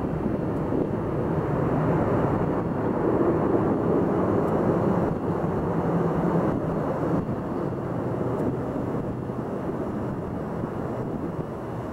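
Boeing 707's four jet engines, without hushkits, at take-off power as the airliner climbs away: a steady, deep jet noise that slowly fades over the last several seconds.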